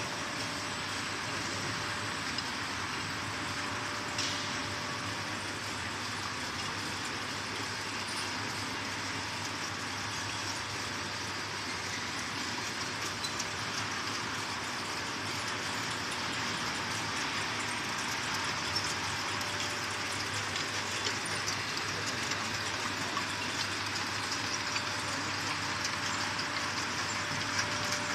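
Whiskey bottle filling line running: the conveyor and filling and capping machines give a steady mechanical hiss and hum with a faint constant tone. Small clicks and knocks come through, more often in the last third.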